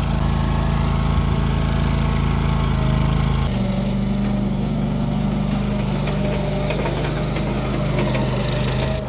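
Engine of a Struck MagnaTrac Hydro 5000 compact bulldozer running steadily. Its note and level change about three and a half seconds in, with a few faint clicks later on.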